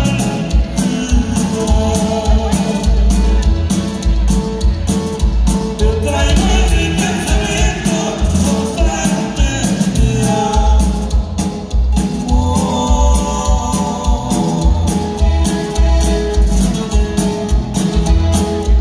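Norteño band playing live: button accordion melody over guitar, bass and drums keeping a steady beat.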